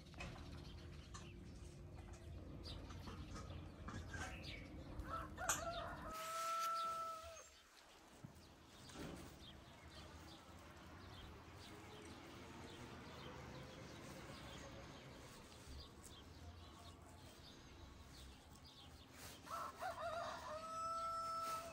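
Rooster crowing twice: once about six seconds in and again near the end, each crow rising to a long held note before dropping off.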